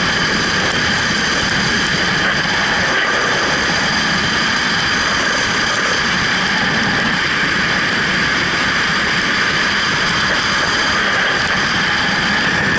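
Steady rush of freefall wind buffeting a camera's microphone, loud and unbroken, with a few steady whistling tones riding on the noise.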